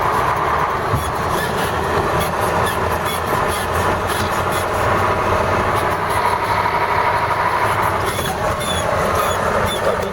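A vehicle on the move, its engine and road noise running steadily, with a light regular ticking over it from a few seconds in.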